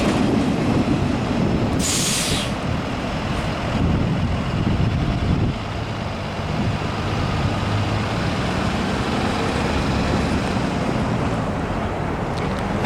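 Norfolk Southern freight train rolling past, a steady rumble, with a short burst of air hiss about two seconds in.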